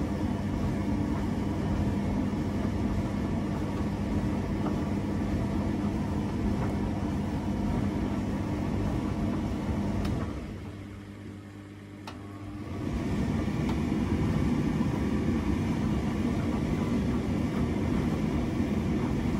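A machine running with a steady motor hum. About ten seconds in it dies down, and a couple of seconds later it picks up again with a rougher, noisier running sound.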